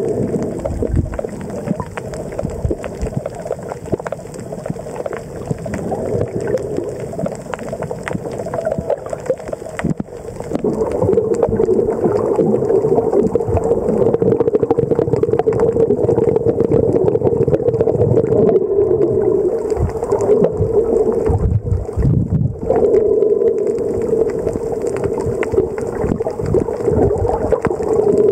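Underwater sound picked up by a camera held below the surface: water rushing and rumbling, joined about ten seconds in by a steady drone that drops out briefly near the end.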